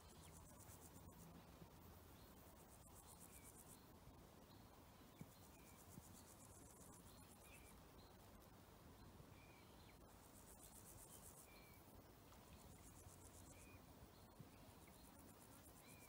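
Faint summer meadow ambience: insects stridulate in bouts of fine, rapid high-pitched buzzing that start and stop every few seconds, with short high chirps about once a second.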